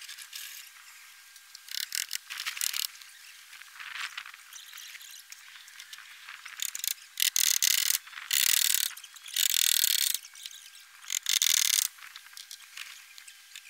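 Hand metal snips cutting through the edge of a metal tile roofing sheet: a string of harsh, rasping crunches, each under a second long. The cuts are loudest and come in quick succession in the second half.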